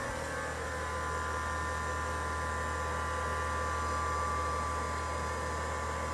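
Electric air compressor running steadily, its motor and pump humming as it fills the tank.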